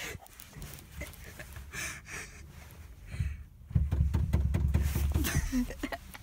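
Phone microphone being handled and rubbed against a car seat: faint rustles and clicks, then a louder muffled rumbling from about four seconds in that lasts under two seconds.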